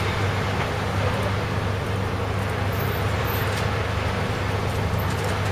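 A city bus's engine running in a steady drone, heard from inside the cabin at the front, with tyre and road noise from driving along a snow-covered road.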